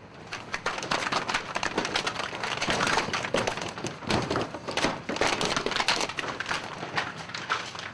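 Hooves clattering as zebu cattle jump down from a livestock truck onto a ramp: a dense, irregular run of knocks and scrapes.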